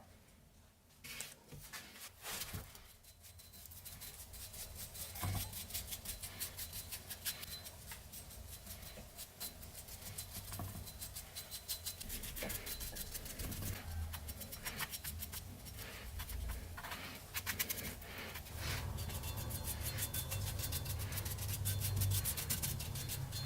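Rapid back-and-forth abrasive rubbing on a metal vise part, growing louder over the first several seconds.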